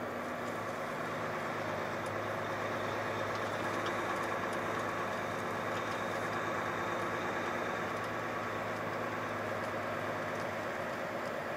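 Volvo FH truck's diesel engine running steadily, a low even hum with no revving, while the truck carries its excavator load.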